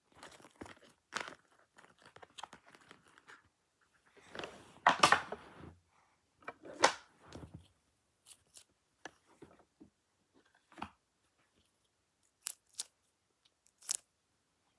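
Small objects being handled on a desk: irregular rustling and crinkling, loudest about five seconds in and again near seven seconds, then scattered light taps and sharp clicks.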